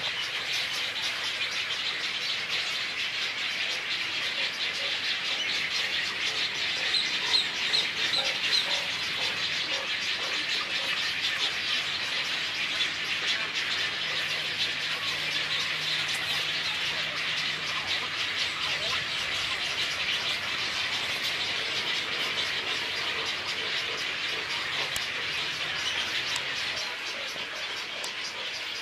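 Dense, steady chorus of many birds chirping and calling at a nesting rookery, with a few louder clear calls about seven to nine seconds in.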